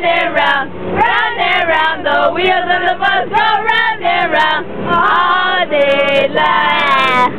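A group of children singing together in chorus, with a couple of long held notes in the second half, over the running of a school bus.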